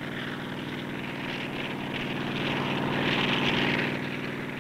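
Bell 47 helicopter in flight, its piston engine and rotor running steadily: an engine hum with a rushing hiss that swells about three seconds in and then eases off.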